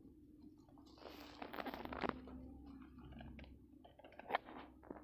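Faint crunching and rustling close to the microphone, a dense crackly patch about a second in and then scattered small clicks, as someone moves about on a dry, grassy mud bank and handles things.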